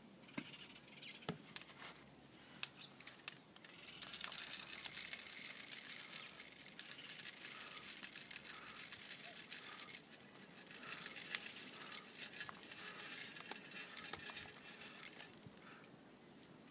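Peppers for Café Touba toasting in a hot black pot over a wood fire while being stirred by hand: a steady, high-pitched crackling and rattling of the grains against the pot, with sharp clicks of the stirring utensil in the first few seconds.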